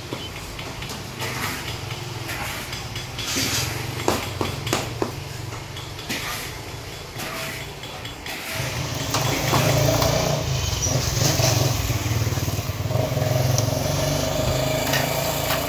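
Cleaver chopping roast chicken on a wooden chopping board, irregular sharp knocks. About eight seconds in, a steady engine drone starts and stays, louder than the chopping.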